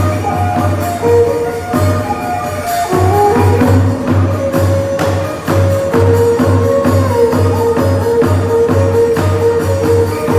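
Khmer ngũ âm traditional ensemble music: a pentatonic melody in held notes over a steady low drum beat about twice a second, with bright metallic percussion strokes.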